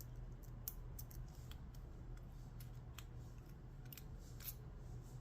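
Knife bypass tool working in the shackle hole of a Brinks 50mm laminated padlock: faint, irregular small metal clicks and scrapes as the thin blade feels for the spring latch to push it back.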